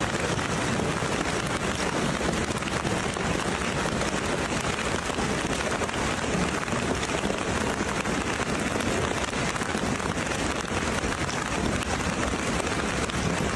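Hailstorm: heavy rain and hail pelting down in a dense, steady patter that starts abruptly.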